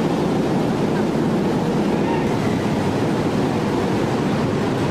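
Heavy forge-shop machinery running: a loud, steady, dense rumble with no separate hammer blows.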